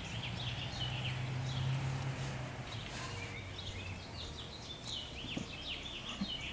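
A small bird chirping in quick runs of short notes, in two bouts with a pause in the middle, over a low steady hum.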